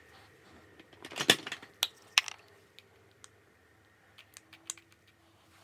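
A quick clatter of small hard objects being handled, with several sharp clicks and rattles about a second in, then a few lighter clicks near the end.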